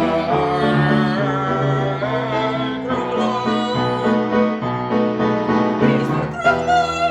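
Woman singing a children's song with piano accompaniment, ending on a high note held with vibrato near the end.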